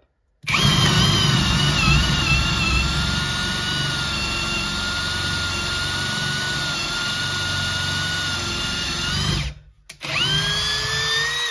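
Parkside Performance PABSP 20-Li C2 cordless brushless drill boring a 12 mm hole in wood on its high-speed gear, a steady loaded whine lasting about nine seconds. It stops briefly, then starts again near the end with a rising whine.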